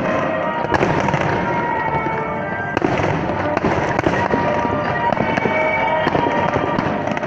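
Fireworks display: a continuous run of bangs and crackling bursts, over music playing along with the show.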